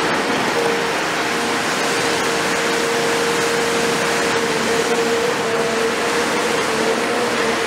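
CAT 336F excavator with its Cat C9.3 diesel engine running steadily, a steady whine setting in about half a second in and holding over the engine noise.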